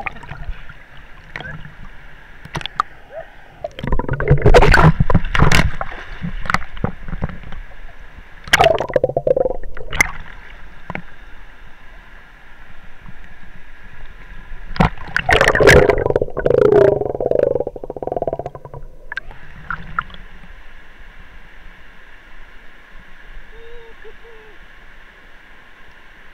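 Water splashing and gurgling, muffled by an action camera's waterproof case, in three loud bursts about 4, 9 and 15 seconds in, over a steady muffled rush of water.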